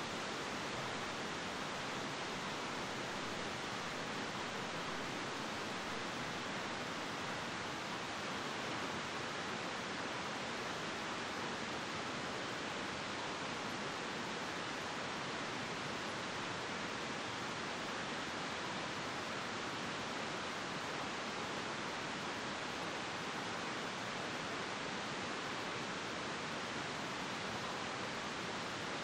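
Steady, even hiss that does not change.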